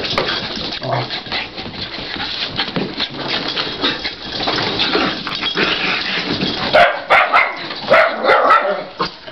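Shiba inus and cairn terriers play-fighting, a continuous rough scuffle of paws and bodies, then several short, sharp barks in the last two or three seconds.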